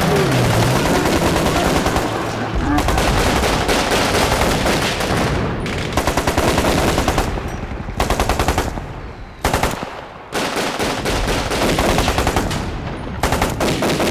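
Rapid automatic rifle fire in repeated bursts, with a couple of brief breaks past the middle.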